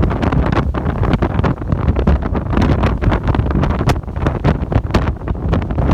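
Strong gale-force wind, the Berkarin wind coming off the Karatau range, battering the microphone. It is a heavy, constant low rumble with irregular crackling gusts.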